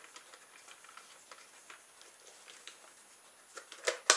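Handling noise from a plastic RC radio transmitter being turned over in the hands above its polystyrene packaging: faint scattered clicks and rustles, then a couple of louder plastic clacks near the end.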